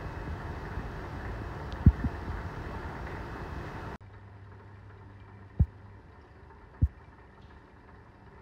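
Magnetic stirrer running with a steady low hum against lab background noise, with three short, dull low thumps; the background drops quieter about halfway through.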